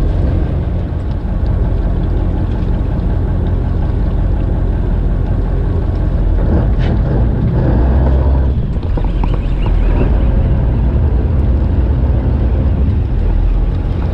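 Steady low rumble aboard a small fishing boat at sea, with a brief click about seven seconds in.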